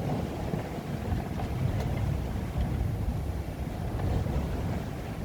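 Steady, gusting wind rumble on the microphone aboard a sailing yacht under way, with the rush of water along the hull.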